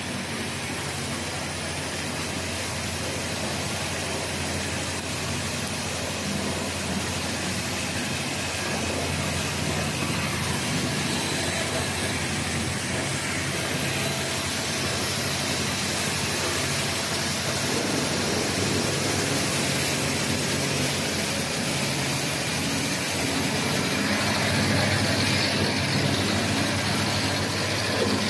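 Automatic blanket hemming machine running: a steady mechanical hum and whir from its motors and sewing heads, growing a little louder and brighter about halfway through.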